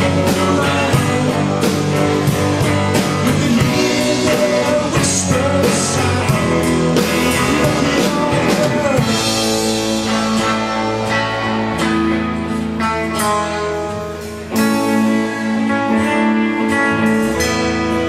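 Live rock band playing: electric guitar, bass guitar and drum kit. Bending notes run through the first half, steadier held notes follow, and there is a brief dip in level before the band comes back in full.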